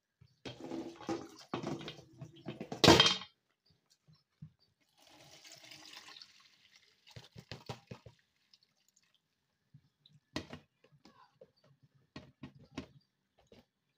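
Handling noises at a steel kitchen sink as chopped spinach is tipped into a perforated stainless-steel colander. Rustling and clatter build to one loud metal knock about three seconds in. A brief hiss like running water comes around the middle, then scattered light knocks and clicks.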